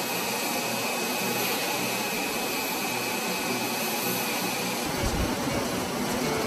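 Aircraft turbine engines running steadily: a loud rushing noise with a high, steady whine. About five seconds in the whine drops away and a deeper rumble takes over.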